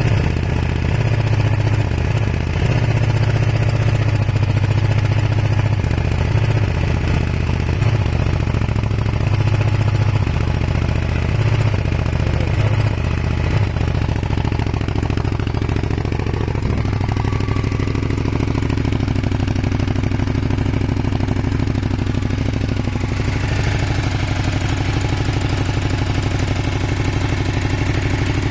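Kawasaki ER-5's parallel-twin engine running with an uneven, lumpy beat for roughly the first fourteen seconds, then steadier. The owner suspects a misfire caused by a blown head gasket, with white smoke.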